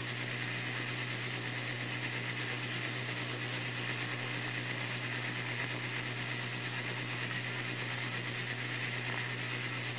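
Steady hiss with a low hum underneath, unchanging throughout, with no distinct event in it: the background noise of an old archival soundtrack.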